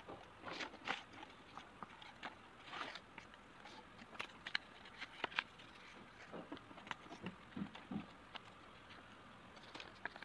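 A strip of white paper being folded and creased by hand on a wooden tabletop: faint, irregular crinkles, taps and short rustles.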